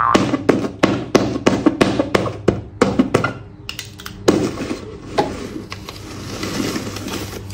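Rapid hammer-like knocking, about five blows a second for the first three seconds, then two single knocks and a faint hiss near the end.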